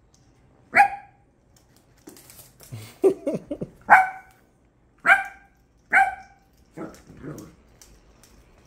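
Italian Greyhound barking at a motorized rolling ball toy: four sharp barks spread over several seconds, with a stretch of quieter, shorter noises between the first and second bark.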